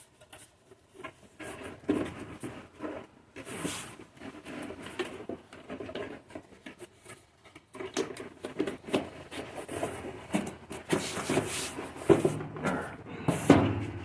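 Hands rummaging through a box of parts: continuous irregular rustling and small knocks, with a few sharper, louder rustles about four seconds in and near the end.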